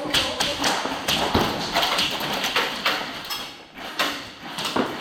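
Airsoft guns firing during an indoor skirmish: an irregular run of sharp clicks and knocks, thickest in the first second and a half, then single cracks spaced about a second apart.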